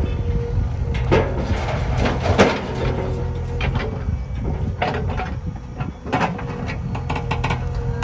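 JCB backhoe loader's diesel engine running steadily under load, with several sharp clanks and knocks as the backhoe bucket digs and swings soil over to the tractor trailer.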